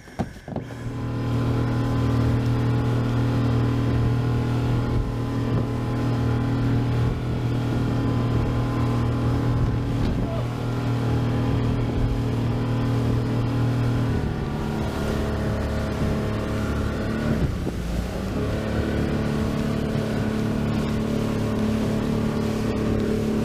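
Boat engine running steadily under way, its note changing about fourteen seconds in and again a few seconds later.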